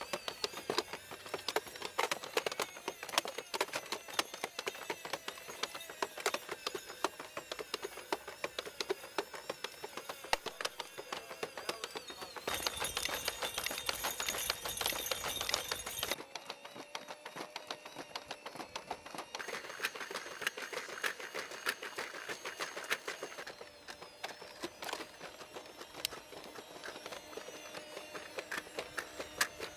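Boston Dynamics four-legged robots walking: a rapid, irregular clatter of their feet over a steady mechanical whine from the hydraulically actuated legs. The mix changes from shot to shot.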